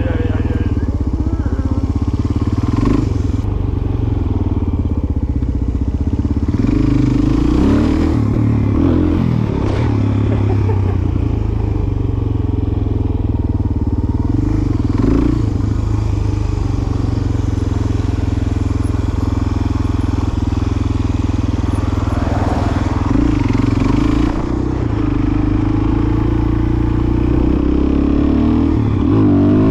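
Dual-sport motorcycle engine heard from the rider's seat, running at low revs, its pitch rising and falling several times with the throttle and climbing near the end as the bike pulls away.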